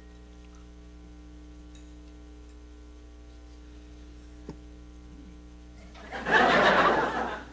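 A person gargling wine loudly in the mouth, a wet, fluttering burst that starts about six seconds in and lasts over a second.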